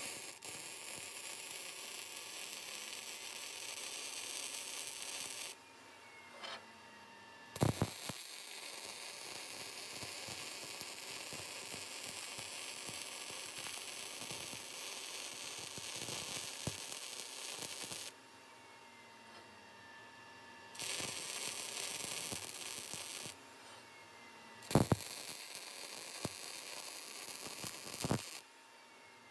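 Wire-feed welder arc crackling and hissing while a weld bead is laid, in four runs of a few to ten seconds with short pauses between them. A few sharp clicks mark when the welding restarts or stops.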